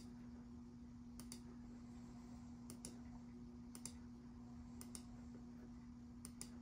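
Faint pairs of computer clicks, about six double clicks spread a second or so apart, as supports are placed one by one in slicer software; a steady faint hum runs underneath.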